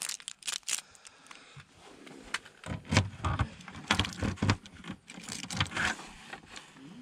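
Handling noise: an irregular run of clicks, knocks and rustles as a caravan's plastic side hatch and a mains hookup lead are worked by hand, with a few heavier thumps about three to four seconds in.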